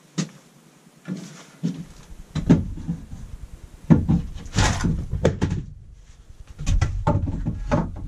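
Irregular knocks and thumps of wooden boards being handled and bumped against the wall framing inside a van's cargo area, over a low rumble of handling noise.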